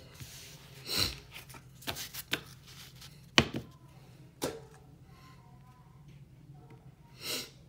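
Trading cards and booster packs being handled on a tabletop playmat: a handful of sharp taps and clicks as cards are set down and packs picked up, the loudest about three and a half seconds in, with a short rustle near the end.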